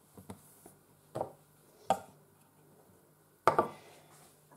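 Light taps and knocks of hands and small objects on a hard kitchen worktop while cut fondant circles are picked up, the sharpest about two seconds and three and a half seconds in.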